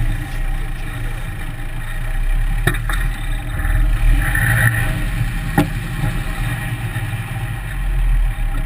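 Four-wheel-drive's engine running at low revs as the vehicle crawls over rough dirt, heard up close from beneath the chassis, with two sharp knocks about a third and two thirds of the way through.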